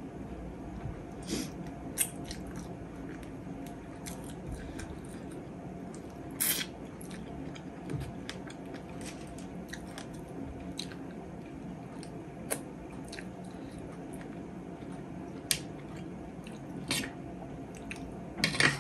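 Close-up eating sounds: chewing and biting mouthfuls of chicken biryani, with scattered clicks and scrapes of a metal spoon against a ceramic plate, the loudest clatter near the end. A faint steady hum runs underneath.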